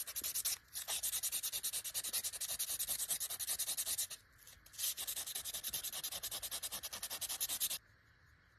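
Hand sanding a pocket knife's handle with 600-grit sandpaper: quick, even back-and-forth strokes, about five a second, with a short break about four seconds in and a sudden stop near the end.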